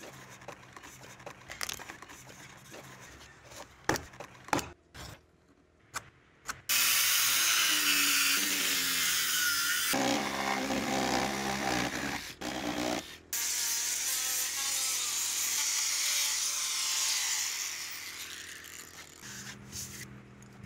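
A few knocks and handling sounds, then a saw cutting through the end of a wooden beam in long continuous runs from about seven seconds in. There is a short break near thirteen seconds, and the cutting fades out near the end.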